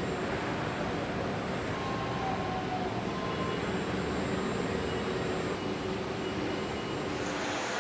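Steady factory machinery noise: an even rumble and hiss with faint humming tones.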